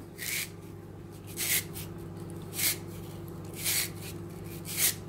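Handheld spiralizer shaving a large white radish into ribbons: a short rasping cut with each twist, five in all, about one a second, over a steady low hum.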